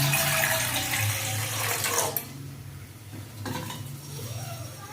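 Water running or pouring into a kitchen vessel for about two seconds, then stopping abruptly.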